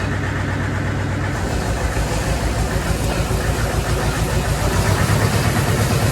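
Vehicle engine running steadily, growing louder and rougher about a second in as it takes more throttle or load.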